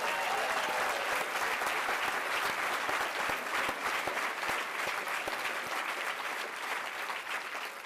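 Audience applause: many hands clapping together in a dense, steady patter that begins to fade near the end.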